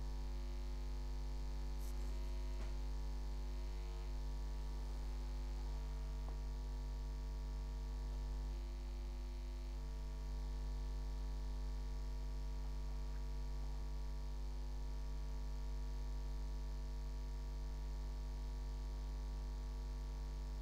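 Steady electrical mains hum: a low drone with a stack of even, unchanging tones above it. A faint click about two seconds in.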